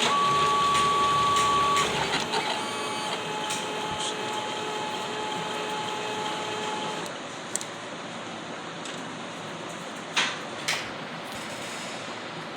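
HP LaserJet 3035/3005 printer running, with a steady whine that steps down in pitch about two seconds in. The mechanism stops about seven seconds in, leaving a fainter hum, and two short clicks follow near the end.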